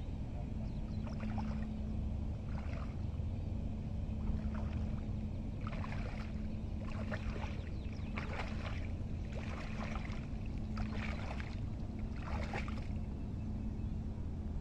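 Shallow water splashing in short, irregular bursts as the net is worked in a salt-pan pond, over a steady low hum and wind rumble.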